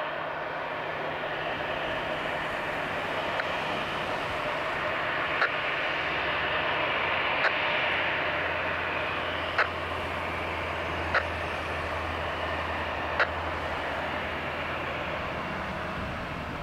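Airbus A320's twin jet engines running at low taxi power as the airliner rolls slowly along the runway: a steady rush of engine noise with a low hum underneath. A few short clicks come about two seconds apart from about five seconds in.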